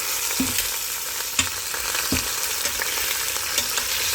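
Chicken drumsticks, some still partly frozen, sizzling in oil in an Instant Pot on its sauté setting, with a steady hiss. A few short knocks come through it, the loudest about a second and a half in.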